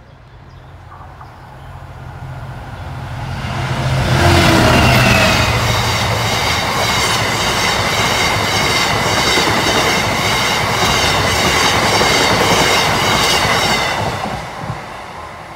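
Class 66 diesel freight locomotive approaching and passing, its engine rumble building to a peak about four seconds in. A short rake of bogie hopper wagons follows, the wheels clattering rhythmically over the rails with a steady high whine, and the sound fades away near the end.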